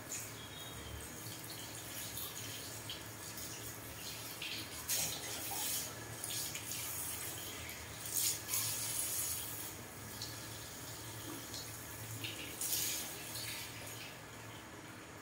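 Water from a handheld shower sprayer running over a man's hair and splashing into a shampoo basin as his hair is rinsed. The splashing swells in several surges and falls quieter near the end.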